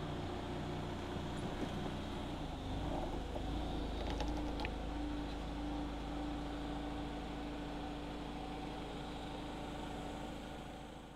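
Jungheinrich TFG 320s LPG forklift engine idling steadily, with a few light clicks about four seconds in.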